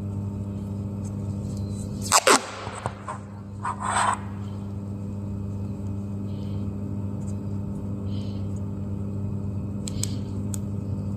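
Black electrical tape being pulled off its roll and wound onto a chopstick, giving a couple of short crackling rips about two and four seconds in. A steady low hum runs underneath.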